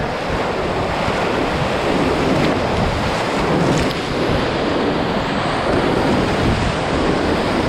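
Whitewater rapids rushing and splashing right around an inflatable kayak, a loud, steady churn of water close to the microphone.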